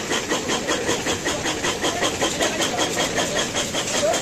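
Stick (arc) welding a copper strip onto a copper earth plate: the arc crackles and hisses, with a steady pulsing of about four to five beats a second.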